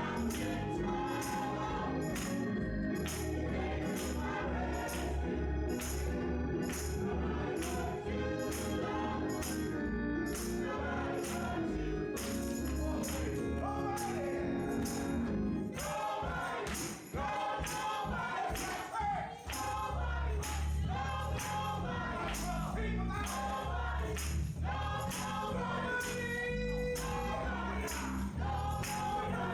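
Gospel music from a church praise band and choir, with a tambourine keeping a steady beat and singing over the band. The bass and low instruments drop out for a few seconds near the middle, then come back in.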